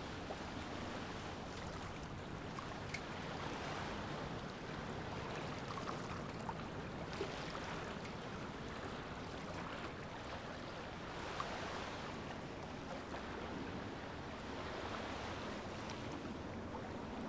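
Steady outdoor noise of wind and water with a low rumble underneath, broken only by a few faint ticks.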